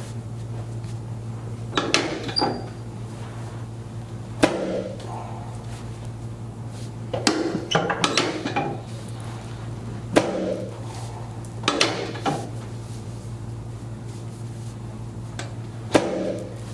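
A series of sharp knocks and thuds at irregular intervals, some in quick pairs, from chiropractic thrusts along the spine of a patient lying face down on an adjusting table. A steady low hum runs underneath.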